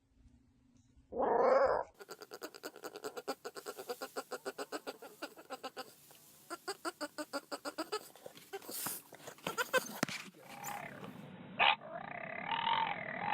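Dogs vocalizing: one loud bark about a second in, then a fast run of short repeated sounds, about six a second, for several seconds. Near the end a dog makes drawn-out, wavering vocal sounds.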